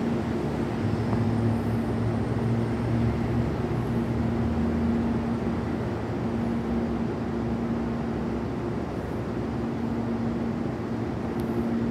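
Electric commuter train standing at a station platform, giving a steady hum with a constant droning tone.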